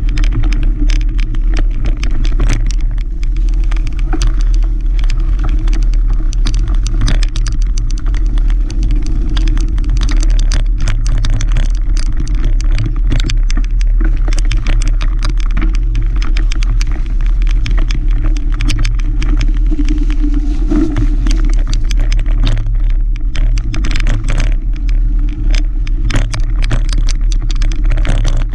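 Mountain bike riding fast over dirt singletrack, heard from a camera mounted on the bike: a loud, steady low rumble of wind on the microphone, with frequent rattles and knocks as the bike runs over roots and bumps.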